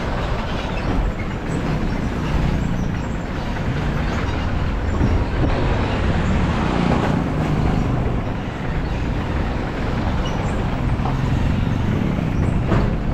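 Car driving on a road: a steady rumble of engine and tyre noise, with a sharp knock near the end.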